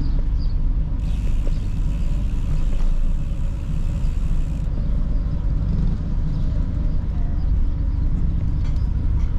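Wind buffeting the microphone of a bike-mounted camera while cycling along a road: a loud, steady low rumble, with a fainter hiss over it for a few seconds early on.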